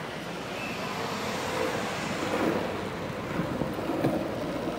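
Skateboard wheels rolling steadily over street asphalt, with wind on the microphone and city traffic around.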